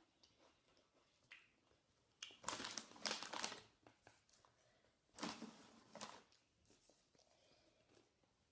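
Doritos Roulette chip bag crinkling as it is handled, in two bursts about two and a half and five seconds in.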